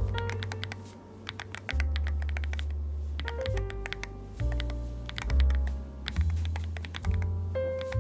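Typing on Akko Astrolink hand-lubed magnetic switches in a Wooting 80HE with PC plate, KBDfans GT-80 case and PBT Cherry-profile keycaps: runs of quick keystrokes with short pauses, over background music with a low bass line.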